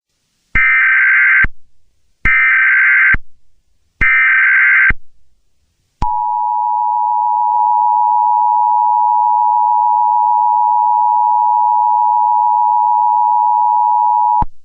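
Emergency Alert System broadcast tones: three roughly one-second bursts of the digital SAME header, a harsh warbling data screech, about two seconds apart. About six seconds in comes the EAS two-tone attention signal, held steady for around eight seconds before it cuts off.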